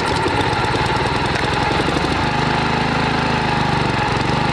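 Honda HRX217 walk-behind lawn mower's engine running steadily.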